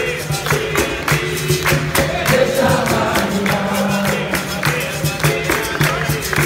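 Capoeira roda music: berimbaus, pandeiro and atabaque drum with handclaps keeping a steady beat, under group call-and-response singing.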